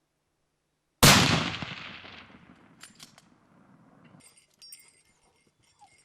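A single rifle shot about a second in, its sound fading away over the next second or two.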